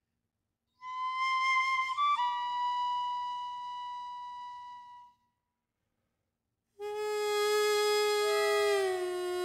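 A ryuteki, the Japanese bamboo transverse flute, holds one long high note with a small pitch flick about two seconds in, then fades away. After a pause a hichiriki, a Japanese double-reed pipe, enters on a lower note rich in overtones that bends down in pitch near the end.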